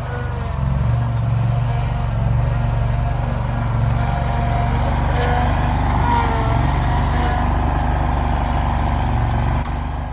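Scag Turf Tiger zero-turn mower's engine running steadily under load, with a faint wavering whine above it; the level dips slightly near the end.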